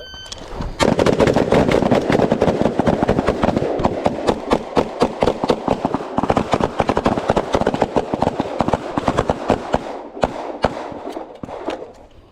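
A short electronic beep, then rapid, overlapping gunfire from several shooters firing at once, dozens of shots in quick succession that thin out near the end.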